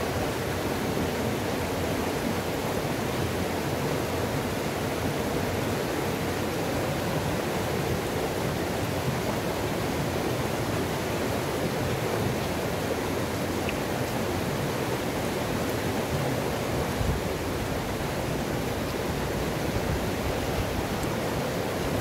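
Mountain river's white water pouring over rock ledges and boulders into a pool: a steady, even rush with no change.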